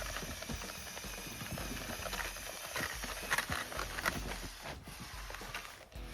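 Irregular clicking and light rattling of plastic Lego Technic parts, in uneven bursts that are busiest near the middle.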